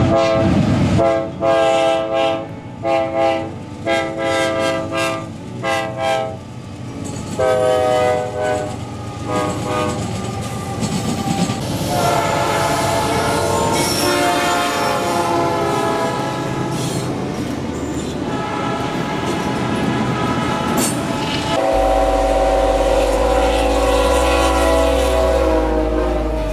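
Diesel freight locomotive air horns: a run of short blasts, then longer held blasts, over the rumble and clickety-clack of a passing train. A deep rumble comes in near the end.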